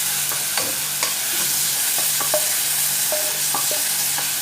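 Tomatoes and garlic frying in oil in a pan: a steady sizzling hiss, with scattered clicks and scrapes as a spoon stirs them.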